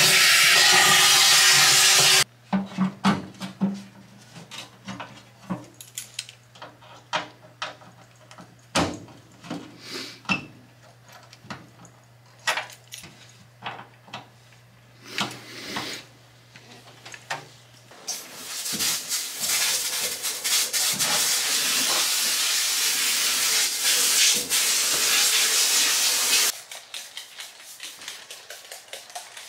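Hands-on work on a 1966 Austin Mini Moke's steel body. It opens with about two seconds of loud hiss carrying a few steady tones, then a long run of separate sharp clicks and taps from hand tools on the metal over a faint low hum. About eight seconds of steady hiss follow, and quieter taps come near the end.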